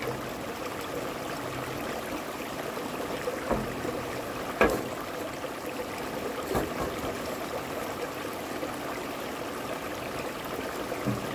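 Shallow stream rushing steadily over rocks, with three short knocks, the sharpest about halfway through.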